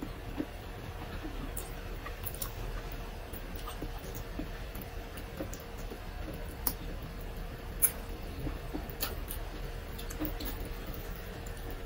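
Close-miked eating sounds of someone eating fried tilapia by hand: irregular sharp lip smacks and chewing clicks, a few every second or so, over a faint steady hum.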